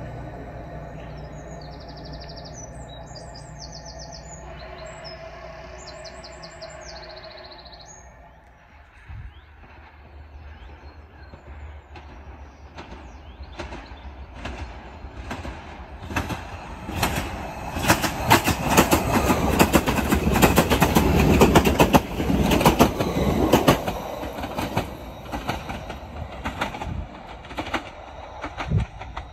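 Class 755 diesel-electric multiple unit passing: a low steady drone at first, then the clickety-clack of wheels over rail joints. It builds from about twelve seconds to a loud pass about two-thirds of the way through, then fades.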